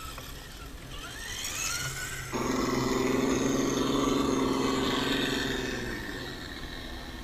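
Electric drive motors and geartrains of scale RC crawlers whining. First a rising whine, then a sudden switch to a louder steady hum that fades out about six seconds in.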